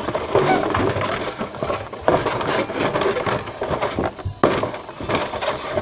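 Busy clatter and rubbing of small hard objects being handled, with many quick knocks close together.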